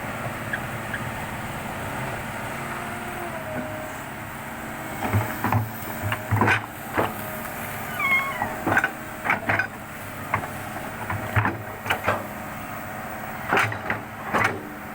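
Excavator engine running steadily, then from about five seconds a series of sharp clanks and knocks with a brief falling squeal about eight seconds in.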